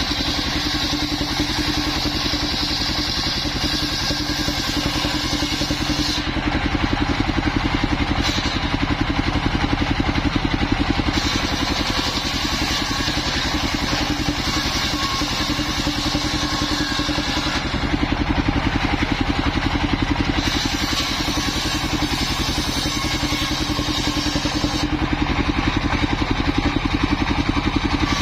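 A small engine running steadily, driving a circular saw that rips waru wood lengthwise into roof battens. The high hiss of the blade cutting through the wood breaks off briefly three times between passes while the engine keeps running.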